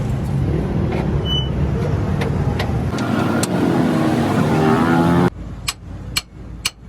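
A motor vehicle running loudly, with a steady low engine hum under road noise, that drops away abruptly about five seconds in. A few sharp clicks follow.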